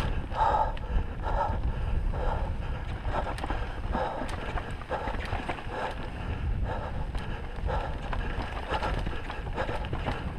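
Wind rushing over the microphone and a mountain bike's tyres rolling over dirt and rocks on a fast descent, with scattered light rattling clicks from the bike.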